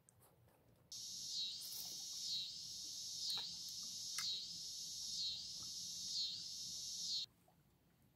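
Insects buzzing in a dense, high-pitched drone that swells about once a second. It starts suddenly about a second in and cuts off abruptly near the end.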